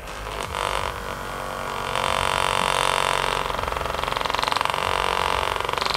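Handheld percussion massage gun's motor running at its top speed setting, a steady buzz. It gets louder about two seconds in, and from about halfway the level pulses in a fast, even beat.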